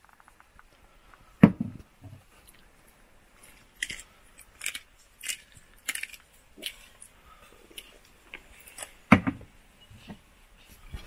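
Irregular light clicks and clinks of objects being handled, with two heavier knocks, about a second and a half in and about nine seconds in.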